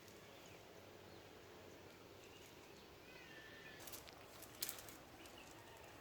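Quiet outdoor ambience with faint bird chirps, and two short sharp clicks about four seconds in.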